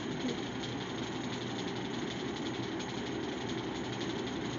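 Steady background hum, unchanging, with no speech.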